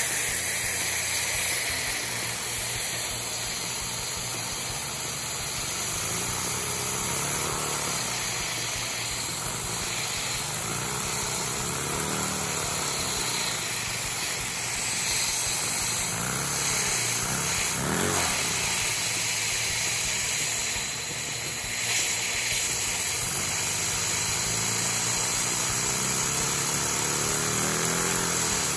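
Compact inline-two Lego vacuum engine running fast and steadily on vacuum-cleaner suction, a continuous airy rush with engine noise whose pitch rises and falls a few times as its speed changes.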